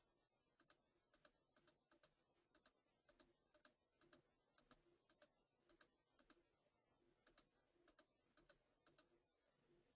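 Faint computer keyboard typing in near silence: keystrokes come irregularly, about two a second.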